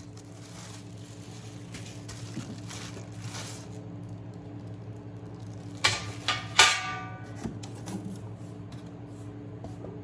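Metal air fryer oven cooking trays being handled: two clanks about six seconds in, the second ringing briefly, over a steady low hum.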